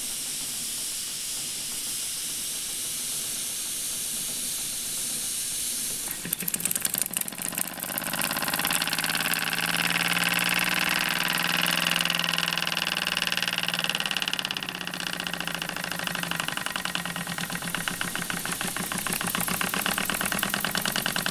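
Jensen No. 60 toy steam engine: steam hisses steadily for about six seconds, then the single-cylinder engine gets going and runs fast with a rapid, even chuffing beat.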